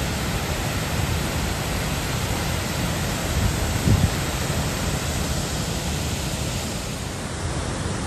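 Jägala waterfall: water pouring over a wide ledge, a steady rushing roar at a time of low flow. There is a brief low thump about halfway through.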